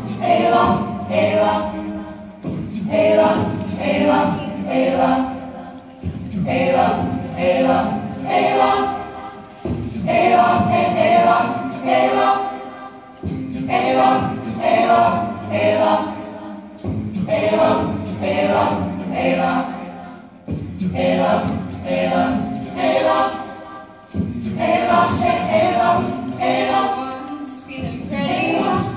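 High school choir singing in harmony, phrase after phrase, with a short break about every three and a half seconds.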